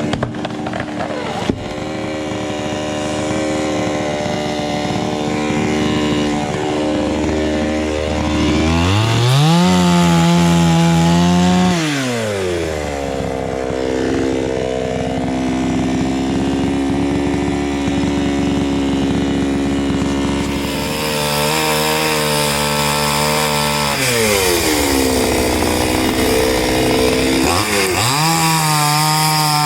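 Chainsaw running and cutting jackfruit wood, revved up to full speed and dropped back about three times.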